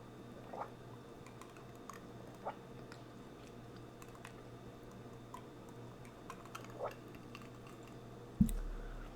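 A person chewing food, with small wet clicks and crunches every second or two. A sudden low thump comes near the end.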